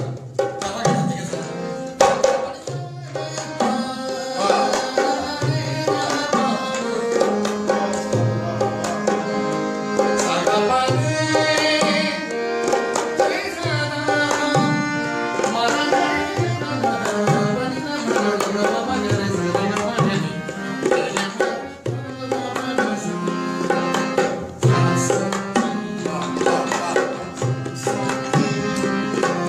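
Hindustani classical music: tabla playing a steady rhythm with deep bass strokes under sustained harmonium notes, and a vocalist singing fast, wavy melodic runs of a raga.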